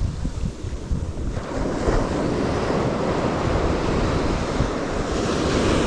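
Surf on a sandy beach: a broken wave's foamy wash comes up the sand, swelling about a second and a half in and staying up, with gusty wind buffeting the microphone.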